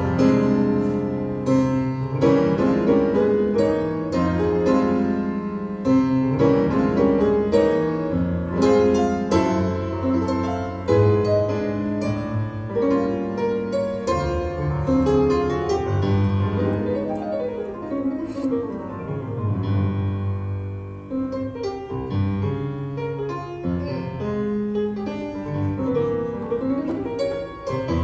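Jazz piano solo on a grand piano: quick, busy runs of notes over a low accompanying line.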